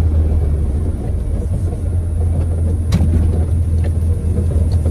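Air-cooled VW Beetle flat-four running through a 4-into-2-into-1 aftermarket exhaust, heard from inside the cabin while driving: a steady low drone at an even engine speed.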